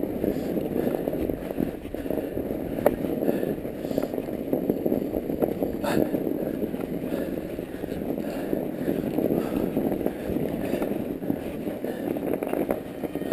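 Mountain bike riding through fresh snow on a trail: a steady rolling noise from the tyres in the snow and the bike over rough ground, with a couple of sharp clicks about 3 and 6 seconds in.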